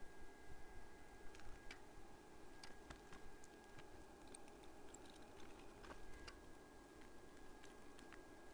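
Faint scattered ticks and light crackling of hand soldering work on a circuit board, over a faint steady high whine.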